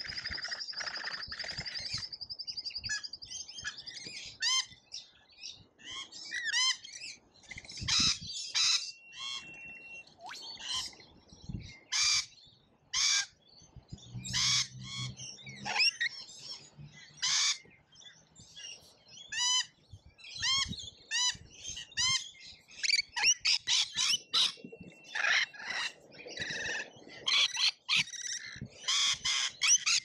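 Noisy miners and rainbow lorikeets calling at a feeder: a busy, irregular stream of short, sharp chirps and squawks, many sliding quickly up or down in pitch.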